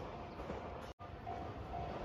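Low rumble of a JR Shikoku 8000 series limited express train fading as it moves away, cut off abruptly about a second in. After the cut comes faint trackside noise with a faint steady tone.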